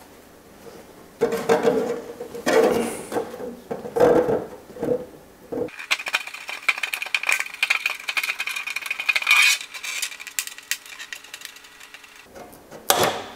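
Scissors snipping through a clear polycarbonate RC car body shell: from about halfway, a dense run of crisp clicks and crackles that thins out near the end. Before that, the thin plastic shell knocks and crackles irregularly as it is handled and flexed.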